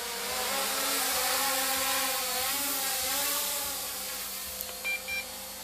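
MJX Bugs 8 brushless racing quadcopter flying overhead, its motors and propellers buzzing with a pitch that rises and falls as the throttle changes. Two short electronic beeps come about five seconds in.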